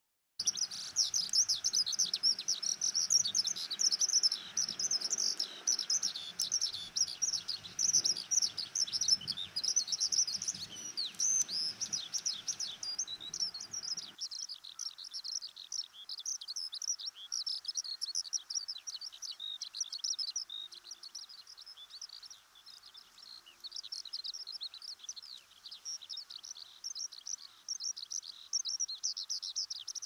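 Eurasian skylark singing its long, unbroken song of rapid chirps and trills, high-pitched and without pauses. A low background rumble under the song cuts off about fourteen seconds in.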